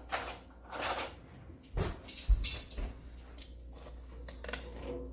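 Kitchen clatter of cookware and utensils: a handful of sharp knocks and short rattles, spread over a few seconds, as a piece of frybread is taken out of a deep fryer.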